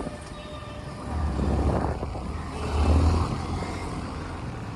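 Yamaha MT-15's single-cylinder engine running as the bike is ridden slowly through town traffic, with a low rumble that swells about a second in and again near three seconds.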